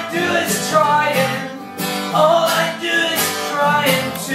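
Acoustic guitar strummed in a live solo song performance, with a singing voice carrying a melody over the chords.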